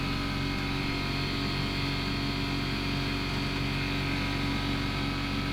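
An engine running steadily at an even speed, a constant hum that does not change.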